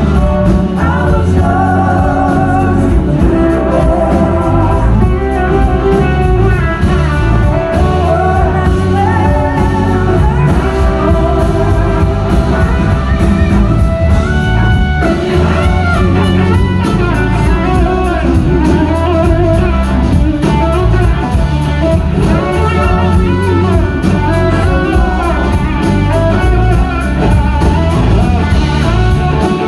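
Live blues-rock band playing, heard from the crowd: electric guitar and drum kit, with singing.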